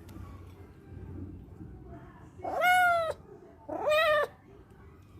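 Hungry kitten meowing twice, about a second apart, begging for its food. Each meow is about half a second long, rising at the start and then falling slightly.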